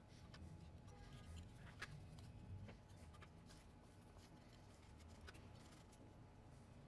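Near silence: faint room tone with a few light, scattered clicks of small parts being handled on a workbench.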